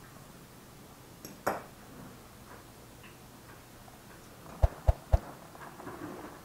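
Scattered clicks and light knocks of cutlery and plates on a dinner table, with three sharp thumps in quick succession about four and a half seconds in.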